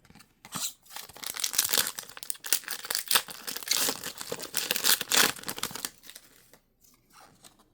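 Foil booster pack wrapper being crinkled and torn open by hand, a dense crackling rustle that thins out to a few faint ticks about six seconds in.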